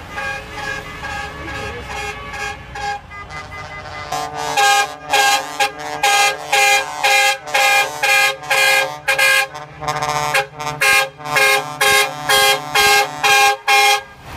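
Tourist buses' air horns honking in a long series of short blasts, fainter at first and then loud and regular from about four seconds in, stopping just before the end.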